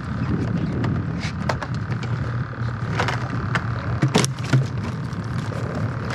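Knocks and clatter of a cooler lid and fishing gear in a small fibreglass skiff, loudest about four seconds in, over a steady low hum.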